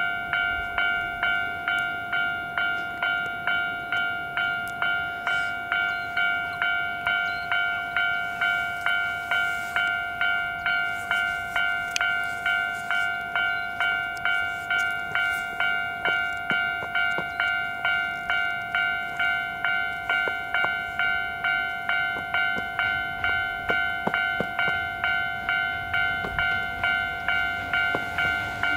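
Japanese level-crossing alarm ringing its steady, evenly repeated two-tone clang, about two strikes a second. Near the end, the low rumble of an approaching train begins to rise beneath it.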